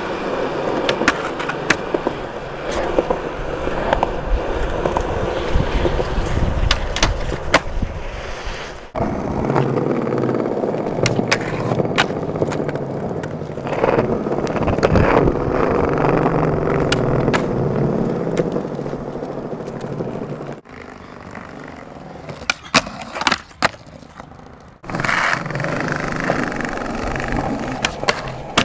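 Skateboards rolling over rough concrete, with sharp clacks of boards popping and landing; the sound cuts off abruptly a few times. Near the end a board grinds along a concrete ledge.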